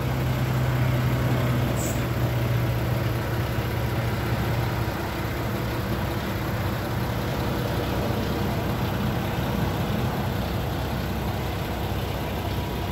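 Heavy truck diesel engine of a Peterbilt 579 with its emissions system deleted, idling steadily; the low hum drops a little in level about five seconds in.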